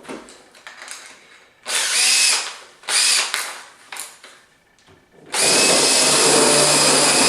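Power drill spinning a hole saw as it bores into a wooden door: two short bursts, then a steady run starting about five seconds in.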